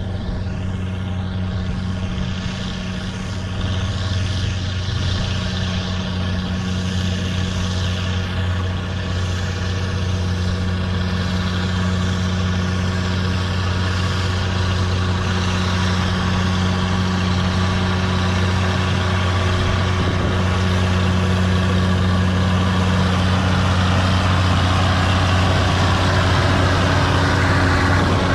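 Allis-Chalmers 7010 tractor's diesel engine running steadily, with a deep even hum that slowly grows louder and a faint rising whine near the end.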